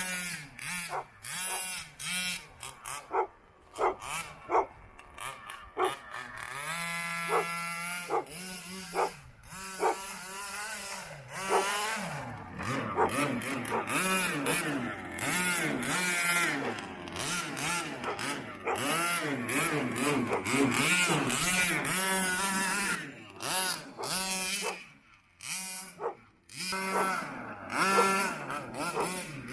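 Two-stroke gas engine of a 1/5-scale Rovan BM5 RC monster truck revving as it is driven, in short throttle blips and longer pulls with the pitch rising and falling. Near the end it drops almost to nothing for a moment before picking up again.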